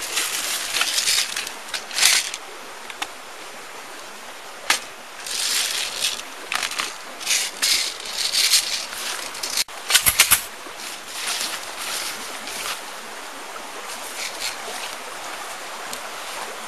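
Rustling of leaves and branches as someone moves and handles gear in undergrowth: repeated short swishes over a steady outdoor hiss, with a quick cluster of sharp knocks about ten seconds in.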